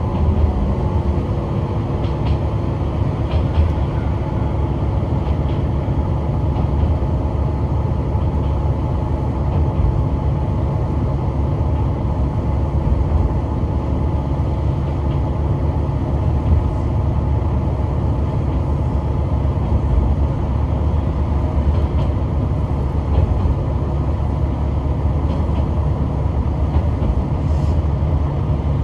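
Kishu Railway diesel railcar running steadily: a continuous engine drone and low wheel rumble, with scattered faint clicks from the wheels on the track.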